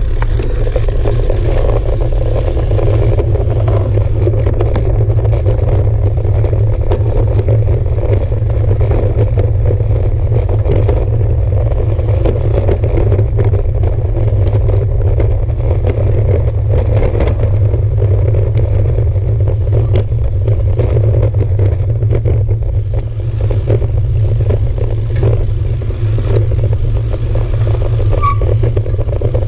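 Road bicycle rolling over cobblestone paving: a loud, steady rumble with constant rattling and clatter from the bike.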